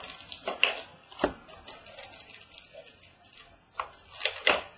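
Irregular crinkling, scraping and sharp clicks of a sealed trading card box being opened and its plastic wrap and cardboard handled, with a cluster of snaps about four seconds in.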